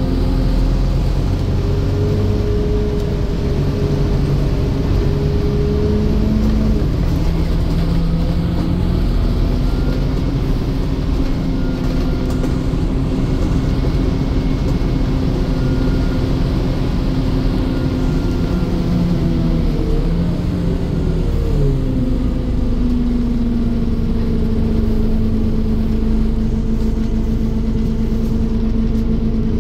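Scania N230UD Omnicity double-decker bus's diesel engine and driveline heard from inside the upper deck while the bus is under way, the engine note rising and falling with changes in speed. About two-thirds of the way through the pitch drops and it settles to a steady note for the rest.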